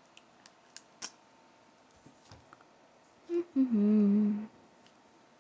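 A person humming briefly about three seconds in: a short higher note sliding down into a steady lower note held for about a second. Before it, a few faint clicks.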